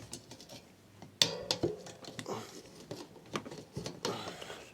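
Tyre irons clicking against a bicycle wheel rim and the tyre rubbing as it is levered, with one sharp click about a second in and lighter taps after.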